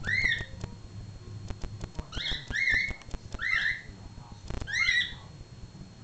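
Young cats mewing in short, high-pitched calls, mostly in pairs, during a play fight, over a low steady hum.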